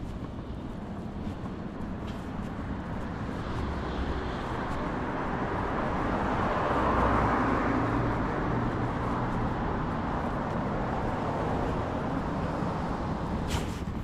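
Street traffic: a motor vehicle passes close by, its rumbling engine and road noise swelling to a peak about seven seconds in, then easing off.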